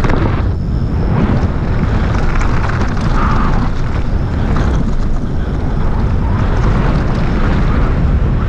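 Wind buffeting the microphone of a camera on a mountain bike riding fast downhill, mixed with the rumble of knobby tyres on a dirt trail. Loud and steady.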